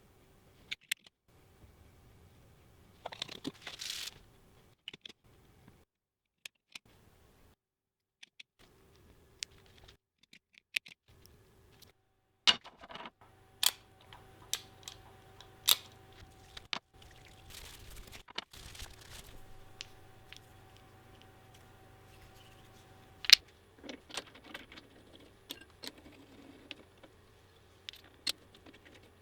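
Scattered light clicks and several sharp metallic knocks of steel machine parts being handled and fitted together. A faint steady machine hum runs through the middle stretch.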